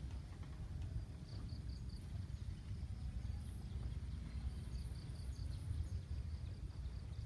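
Outdoor ambience of insects chirping: short runs of quick high pulses repeating every second or so over a faint steady high buzz, with a low rumble underneath.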